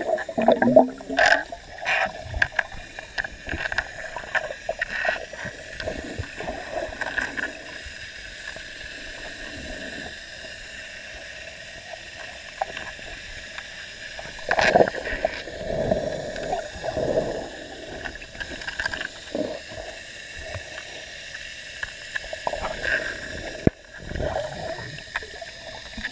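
Muffled underwater pool sound: water churning and bubbles as a golden retriever paddles and dives, over a steady hum. Louder bursts of splashing and bubbling come early, around the middle and again near the end.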